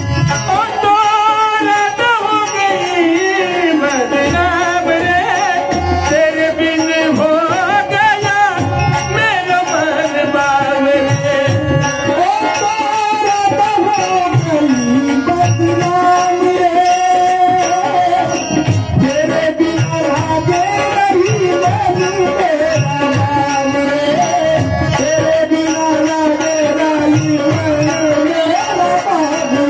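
Indian devotional folk music: a melodic line with long, gliding notes over drum strokes and a steady, high ticking beat.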